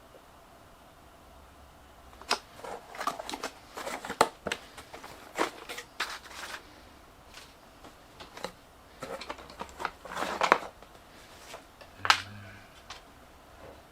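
Hands handling plastic parts: an irregular run of clicks, knocks and rustles.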